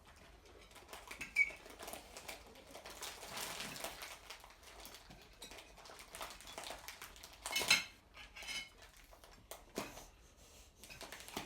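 Cutlery clinking and scraping on plates as people eat, with scattered light clicks, a sharp click about a second and a half in and a louder ringing clink later on.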